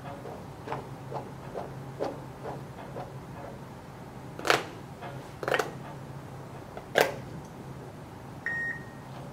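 A timer on a phone beeps once near the end, a single short tone, signalling that the turn is up. Before it, soft handling clicks from a squishy rubber toy being squeezed, and three sharper, louder clicks in the middle.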